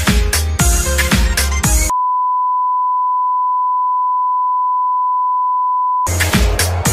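Electronic dance music with a heavy beat breaks off about two seconds in and gives way to a steady, unbroken test-pattern tone, the reference beep that goes with TV color bars. The tone holds for about four seconds, then the music comes back abruptly near the end.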